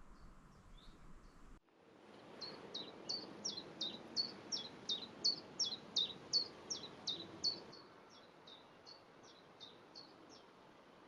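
A small songbird singing a long run of quick, high, repeated notes, about three a second, each slurring downward. The notes grow fainter after about eight seconds.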